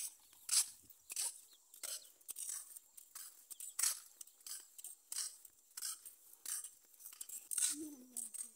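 Footsteps of someone walking along a grassy dirt path, about two steps a second at a steady pace.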